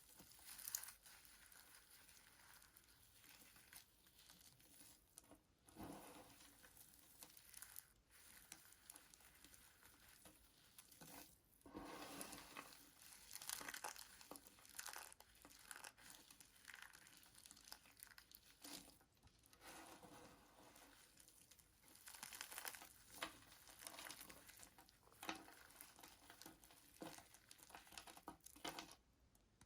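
Bar of soap being cut with a blade: a run of faint scraping, crackling strokes as the blade shaves and breaks through the soap, louder in stretches around the middle and near the end.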